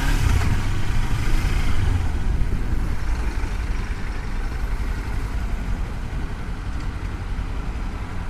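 Kawasaki Versys-X 300's parallel-twin engine running steadily under way, with wind and road noise, heard through a helmet-mounted microphone; the overall level eases off slowly.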